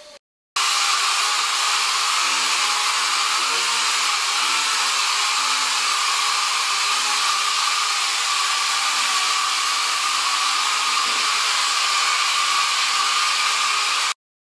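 Paint spray gun hissing steadily on compressed air while spraying primer, a loud, even rush of air that cuts in and out sharply.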